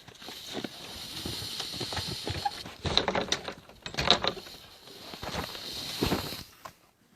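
Footsteps crunching through fresh snow, an uneven run of steps that stops shortly before the end.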